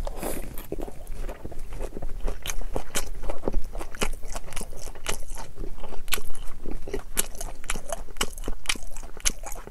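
A large mouthful of sushi being chewed: a steady run of wet mouth clicks and smacks, many to the second.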